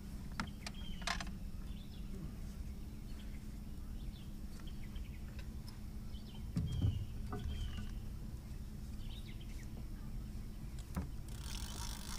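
A fish being fought on a rod and reel from a boat: scattered clicks and knocks of the tackle and boat, a dull thump about seven seconds in, and a short hiss near the end, over a steady low hum.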